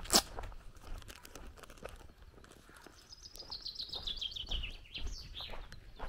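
Footsteps crunching on a dirt lane, with one sharp crunch right at the start. From about three seconds in, a songbird sings a quick run of notes that fall in pitch and end in a short flourish.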